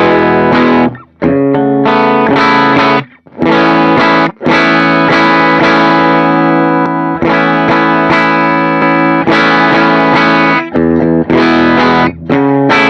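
Electric guitar playing sustained, ringing chords through a JHS Superbolt overdrive into a Tonex One set to a Vox AC30 amp model, giving a lightly distorted tone. The chords are held for a second or more each, with short breaks between them.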